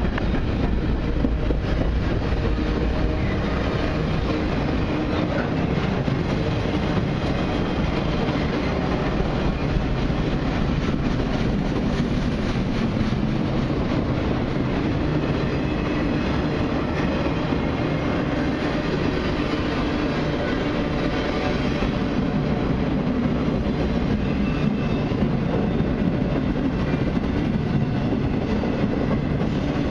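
Freight cars of a long mixed freight train rolling past, a steady noise of steel wheels running on the rails.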